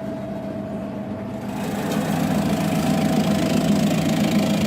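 Electric vegetable slicing machine (green-onion cutter) running with a steady motor hum. About a second and a half in it gets louder and noisier, as greens go through the blades.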